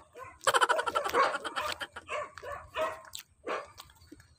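A dog barking repeatedly in a run of short barks, the first one longer.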